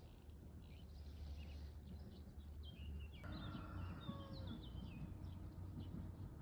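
Birds chirping in short, quick notes that slide up and down, growing busier about three seconds in, over a steady low rumble.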